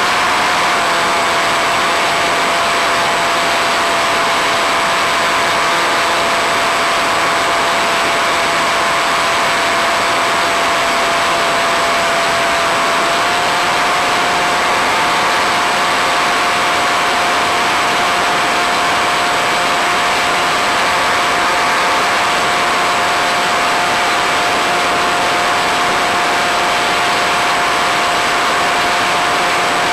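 Easystar RC plane's electric motor and pusher propeller running steadily under power: a constant whine over a heavy rushing hiss of air. The whine steps up slightly about halfway through.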